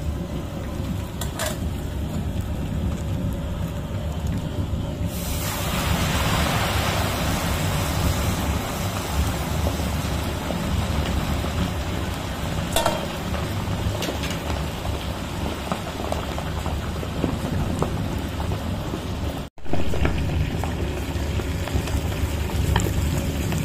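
Hot frying oil sizzling and crackling in a kazan as fried fish is lifted out with a wire skimmer, over a steady low rumble. The sizzle grows denser about five seconds in, with a few sharp metal clicks.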